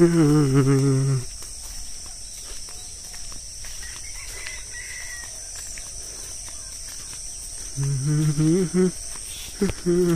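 Steady high-pitched chirring of insects throughout, with a man singing a tune for about the first second and again near the end.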